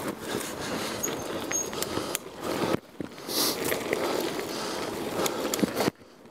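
Bicycle ridden over a dirt and gravel trail: a steady rush of tyre noise with frequent small clicks and rattles. The sound cuts out briefly twice, about three seconds in and near the end.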